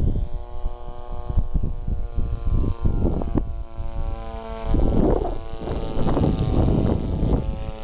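Model airplane's 26cc gasoline engine converted to run on nitro (glow) fuel, running steadily in flight as the plane passes low overhead. Its pitch drops a little past halfway.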